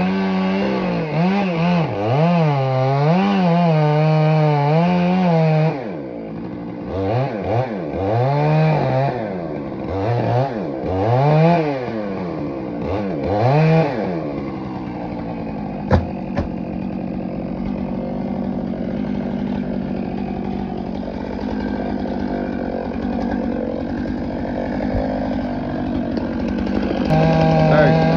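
Gas chainsaw cutting into a dead tree trunk: the engine runs at high revs with its pitch wavering under load, then is revved up and down in short pulses. It then runs lower and steadier for a long stretch, with one sharp knock, and picks up to full revs again near the end.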